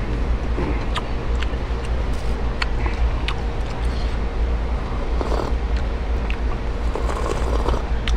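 Close-miked eating: scattered clicks of chopsticks and mouth sounds, and sips from a paper cup around the middle and near the end. A steady low rumble runs underneath, the loudest sound throughout.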